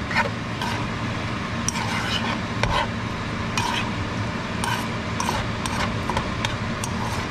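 Shrimp and vegetables frying in a pan while a utensil stirs them. Irregular clicks and scrapes of the utensil on the pan sound over the sizzle.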